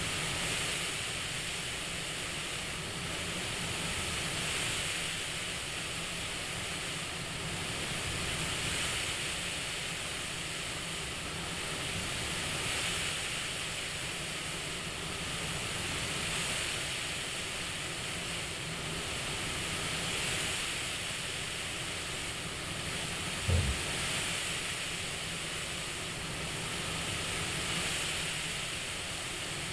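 Steady CPAP-style airflow hiss that swells and eases about every four seconds, like slow breathing. A brief low thump comes about two-thirds of the way through.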